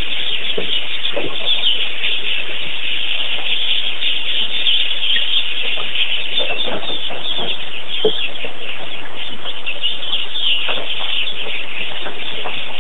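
A steady, dense chorus of wild birds calling and chattering, with a few lower calls standing out now and then.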